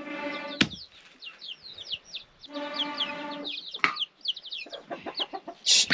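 Chickens clucking, with held calls and quick clucks, while small birds chirp high and fast all through. A few sharp knocks are heard, one about half a second in and another near four seconds in.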